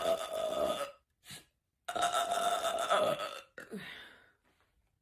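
A woman's loud, drawn-out burps, each held at a steady pitch. One lasts about a second at the start, a short one follows, and a longer one of about a second and a half comes about two seconds in, trailing off in a lower, falling sound near four seconds.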